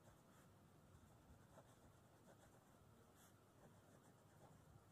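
Near silence, with the faint scratching of a pen writing words on paper.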